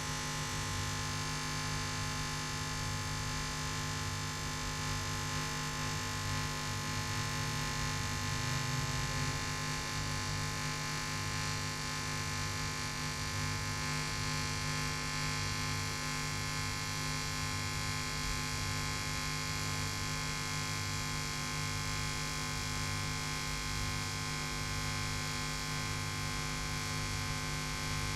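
TIG welding arc on stainless steel pipe: a steady electrical hum with a low throb pulsing about once a second, typical of pulsed-current TIG welding.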